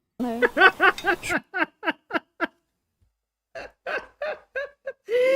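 A person laughing in short repeated bursts, with a pause of about a second partway through before the laughter starts again.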